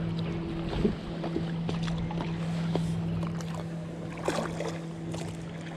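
Kayak paddling: paddle blades dipping and dripping with small splashes and water lapping at the hull, over a steady low hum.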